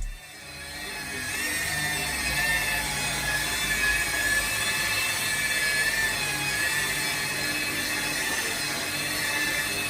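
Power tool running steadily with a high, slightly wavering whine.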